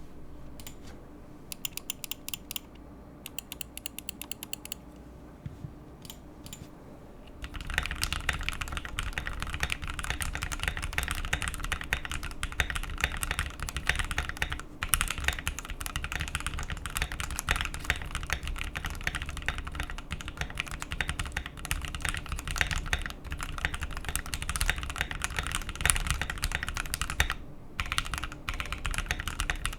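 Keychron Q1 aluminium mechanical keyboard with lubed Gateron Oil King linear switches and painter's tape on the PCB, being typed on. For the first several seconds single keystrokes come at an even pace, then continuous fast typing runs on, with a brief pause near the end.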